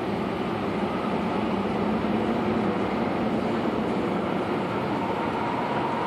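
MTR C-Train (an Adtranz-CAF electric multiple unit) running into the platform behind the platform screen doors: a steady rumble of wheels and running gear. A whine comes in near the end.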